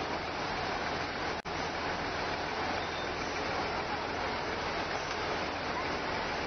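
Steady rushing of a fast, swollen river, mixed with the low running of a Volvo truck's diesel engine as it crawls over a plank bridge. The sound drops out for an instant about a second and a half in.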